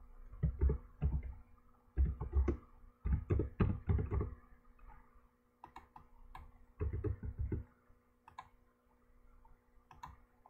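Computer keyboard typing in several short bursts of keystrokes, with a few single clicks between them, over a faint steady hum.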